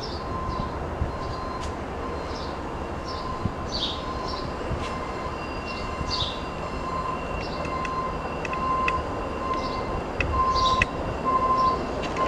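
Distant train approaching on the rails: a steady low rumble and a high ringing tone that breaks up near the end, with birds chirping over it.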